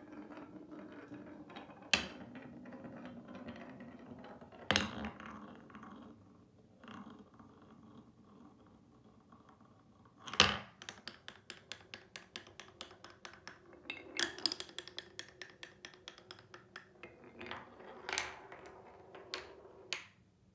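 Glass marble rolling through a wooden block marble run. First comes a steady rolling rumble along a wavy carved track, with sharp knocks a few times as it drops onto the next pieces. Then comes a long run of rapid clicks as it circles the ridged spiral funnel and rolls through curved tiles, stopping near the end.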